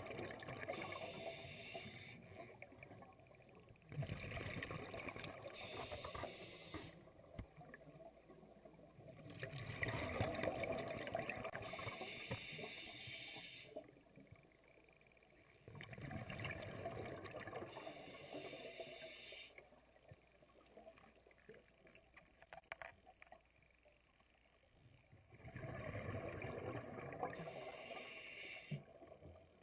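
Scuba diver breathing underwater through a regulator: rushing, bubbling bursts a few seconds long, repeating about every six seconds, with a longer pause about two-thirds of the way in.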